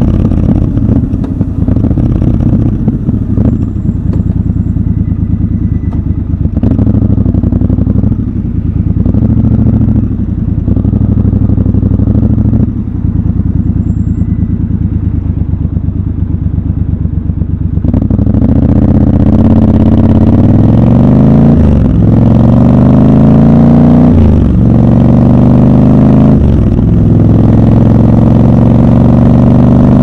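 Triumph Scrambler 1200 XC's 1200 cc parallel-twin engine turning over at low revs, idling at a stop, then pulling away about 18 seconds in. It revs up louder through three upshifts.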